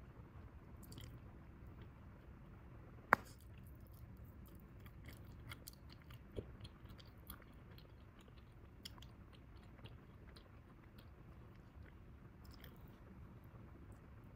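Bubble gum being chewed quietly: a run of small irregular clicks, with one sharp snap about three seconds in.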